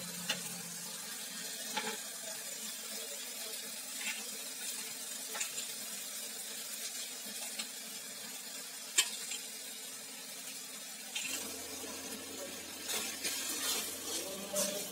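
Tomato-onion masala sizzling steadily in oil in a steel kadhai, with a few light clinks of a steel ladle against a pot.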